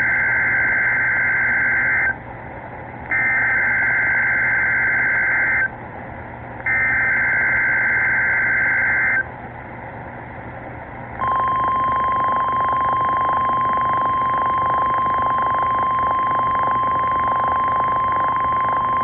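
NOAA Weather Radio alert signal heard over a weather radio receiver with a hiss underneath: three harsh two-tone SAME digital header bursts, each about two and a half seconds long with a short gap between them, then, about eleven seconds in, the steady 1050 Hz warning alarm tone. It is a routine test of the NOAA Weather Radio warning alarm.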